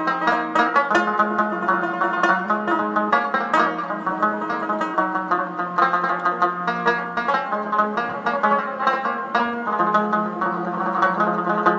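Background instrumental music of quickly plucked strings, with a run of rapid picked notes over a steady low held note.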